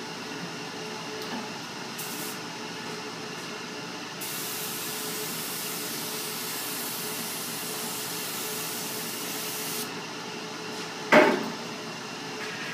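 Air spray gun hissing as it sprays activator over hydrographic film on the water: a short burst about two seconds in, then a steady spray of about five seconds. Near the end there is a sudden loud knock.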